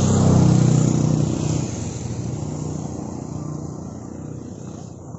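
A road vehicle's engine passing close by, loudest in the first second and a half, then fading as it drives away.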